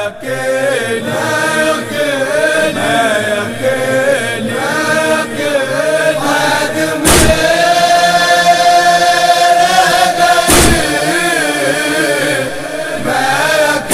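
Chanted vocal of a noha, a Shia lament, with a melodic line that bends and a long held note in the middle. Two sharp thumps cut in, about seven seconds and ten and a half seconds in.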